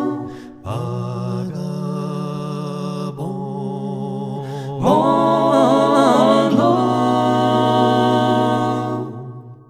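Vocal music: voices singing held chords in harmony, moving to a new chord every second or two, with a wavering vibrato line in the middle. It fades out near the end.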